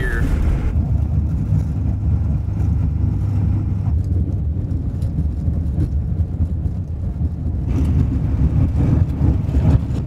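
Steady low rumble of a 1996 Ford F350's 7.3 L Powerstroke turbo-diesel V8 and its tyres on a snow-packed road, heard from inside the cab while cruising.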